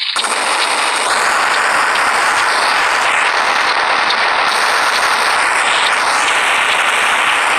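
Cartoon bomb sound effect: a loud, dense crackling noise that starts abruptly and runs on unbroken.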